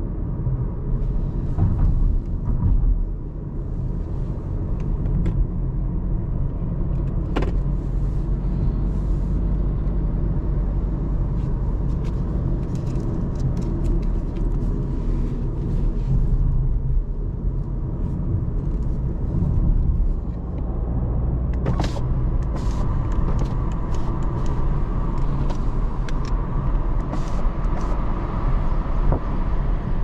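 A 2022 Audi A3 35 TFSI's 1.5-litre turbocharged four-cylinder engine and road noise heard from inside the cabin while driving: a steady low rumble, with a few sharp clicks.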